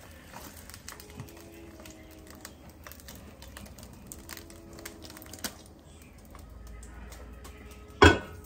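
Frying pan and plate handled while the pan is turned over onto the plate: light clicks and rustles under faint music with held notes. A loud sudden sound comes near the end, as the pan is lifted off.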